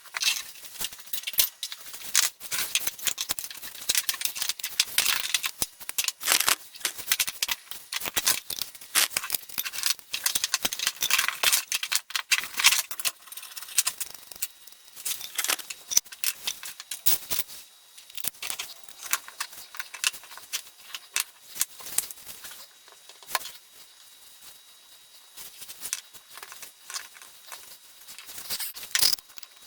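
Irregular, dense run of clicks, scrapes and rattles, like small hard objects being handled, thinning out about halfway through.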